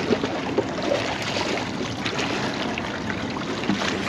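Small waves lapping and trickling among the rocks at the water's edge: a steady wash of water with small splashes.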